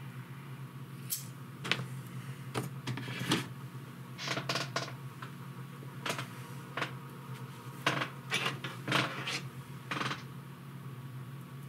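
Hands handling small drone parts and double-sided tape: scattered light clicks and rustles, a dozen or so, over a steady low hum.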